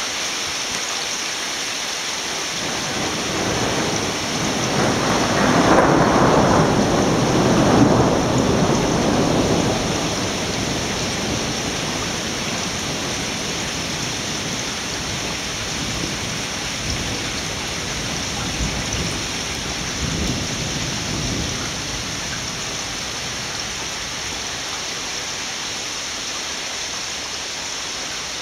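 Torrential rain from a frontal thunderstorm hissing steadily, with a long rumble of thunder that swells about four seconds in and fades by about ten seconds. A fainter rumble comes around twenty seconds in.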